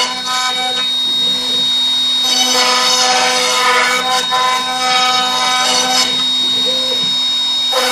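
Small homemade CNC milling machine routing wood: the spindle runs steadily with the bit cutting through wood, while higher machine tones change pitch every few seconds as the machine's moves change.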